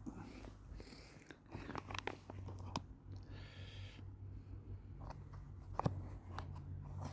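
A man chewing mouthfuls of spicy sausage pasta, with several sharp clicks of the spoon and a short scratchy noise about three seconds in.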